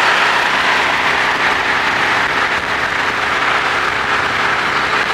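Steady, loud rush of road and wind noise from a car driving at speed.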